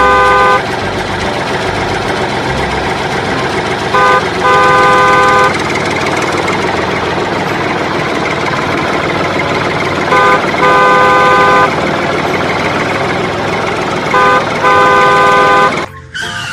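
A vehicle horn sounds a short toot followed by a longer honk, repeated three times several seconds apart. The end of another honk is heard right at the start. Underneath is a steady rumble of engine or traffic noise.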